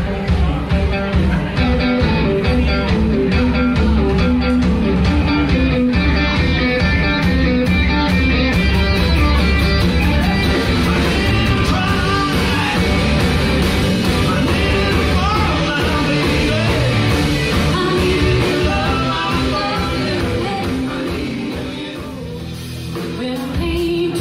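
Live blues-rock band playing: electric guitars, bass guitar and drum kit, with a male voice singing. The music drops back briefly near the end.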